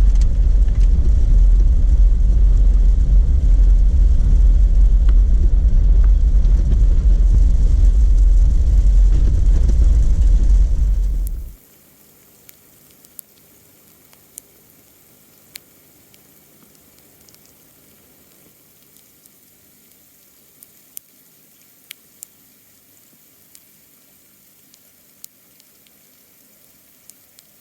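Jeep Wrangler driving on a dirt road, a steady low rumble of engine and tyres. It cuts off abruptly about eleven seconds in, leaving a quiet background with scattered light ticks.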